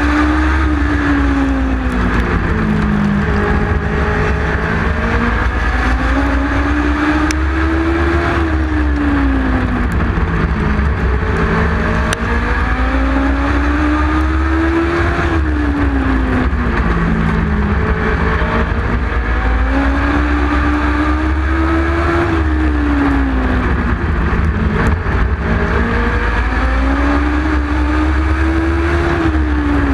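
Legend race car's Yamaha 1250 cc motorcycle four-cylinder engine at racing speed, heard from on board. It revs up and drops back in a regular cycle about every seven seconds as the driver goes flat out down each straight and lifts for each turn, with other Legend cars' engines running close by.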